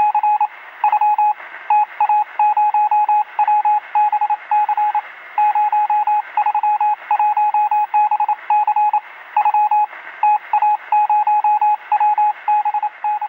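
Morse code: a single beeping tone keyed in quick short and long signals, over a steady radio-static hiss.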